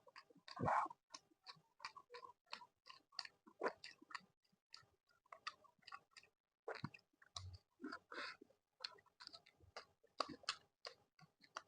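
Close-miked chewing of laddu peethi with green and methi chutney: a steady run of small wet mouth clicks and smacks, with one longer, louder mouthful sound under a second in.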